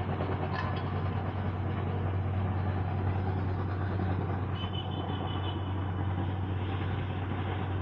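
Steady low hum under an even hiss of outdoor background noise, with no clear single source.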